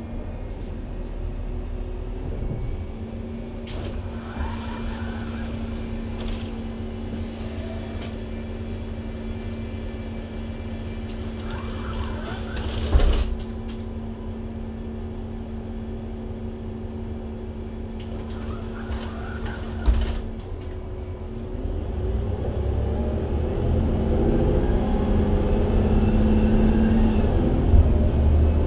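Interior sound of a Mercedes-Benz Citaro C2 G NGT hybrid articulated bus: its natural-gas engine runs with a steady hum, broken twice by short thumps. In the last few seconds the engine note rises as the bus accelerates through its Voith automatic gearbox, with a high whistle climbing alongside.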